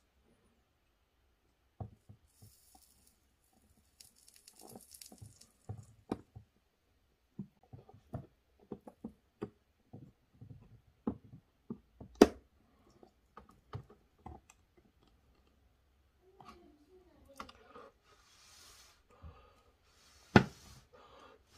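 Soldering and handling noises: scattered small clicks and taps as a soldering iron tip works a metal terminal tab onto the end of an 18650 cell, with brief faint hiss and two sharper clicks, one about halfway and one near the end.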